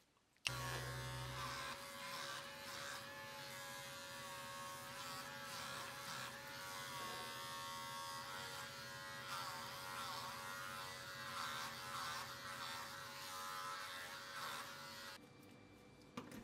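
Electric clippers buzzing as they shave a cat's matted fur, a steady tone with the pitch wavering as the blades cut. They switch on abruptly about half a second in and stop shortly before the end.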